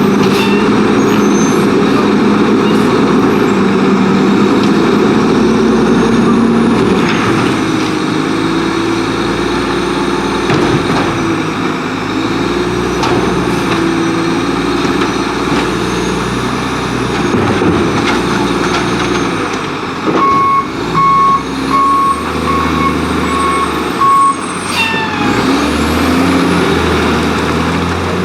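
Diesel engine of an Autocar WX garbage truck revving up and down in gear. A run of about six reversing beeps comes about two-thirds of the way in, and a sharp hiss follows, typical of an air brake.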